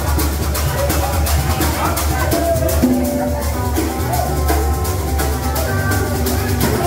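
Upbeat music with drums and shakers keeping a quick, steady beat under a melody.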